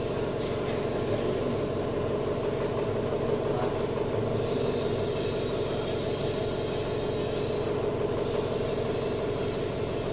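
Steady mechanical hum of an engine or motor running without change.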